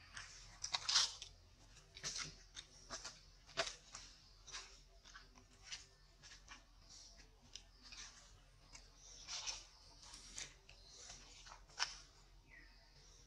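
Baby macaque suckling at its mother's nipple: irregular soft smacking clicks, some louder than others, over a faint steady hiss.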